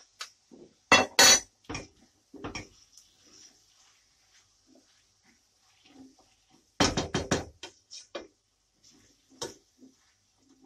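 Wooden spoon stirring minced meat and vegetables in a stainless steel pan, knocking and scraping against the metal. The loudest knocks come in pairs about a second in and as a quick run of several about seven seconds in.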